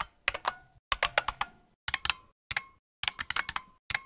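Typing on a computer keyboard: short quick runs of keystrokes with brief pauses between them.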